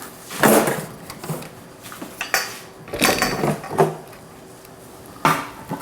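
Metal clattering, scraping and clinking as the STATIM 2000 sterilizer's cassette is slid out and handled at the end of a sterilizing cycle, in several separate bursts.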